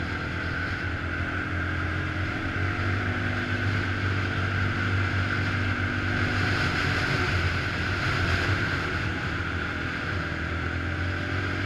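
A 2008 Can-Am Outlander 400 XT ATV's single-cylinder engine running steadily at cruising speed along a dirt trail, with a steady high whine and wind rushing past.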